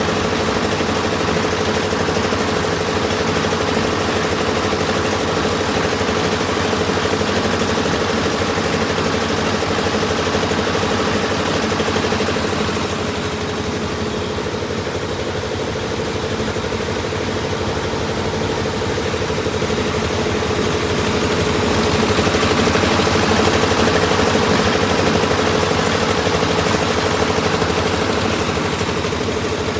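Heavy construction machinery engine running steadily with a constant hum. It eases off somewhat around the middle and picks up again in the last third.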